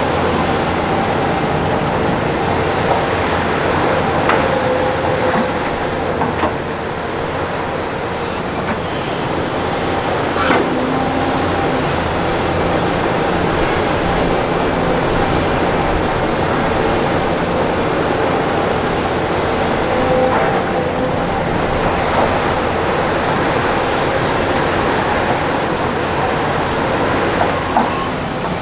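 Heavy earthmoving machinery running steadily, with excavator and dump-truck diesel engines making a continuous rumble. Sharp knocks come every few seconds.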